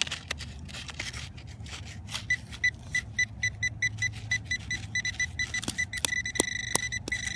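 Handheld metal-detecting pinpointer probing through loose soil in a dug hole: scraping and scratching at first, then from about two seconds in a high beep repeating three to four times a second. The beeps quicken into an almost steady tone near the end, the pinpointer's signal that it is right on the buried target.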